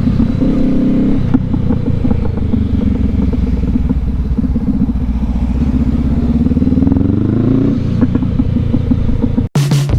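Motorcycle engine running under way, its note steady, then climbing and easing off near the end. Music cuts in just before the end.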